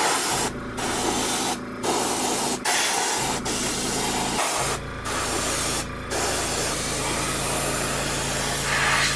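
Gravity-feed airbrush spraying with a loud, steady hiss of air, stopping briefly about five times as the trigger is let off. A steady low hum runs underneath.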